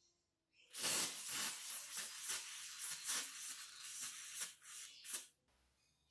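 Aerosol can of penetrating oil spraying through a straw nozzle: a hiss that starts about half a second in, wavers in strength, and cuts off just after five seconds.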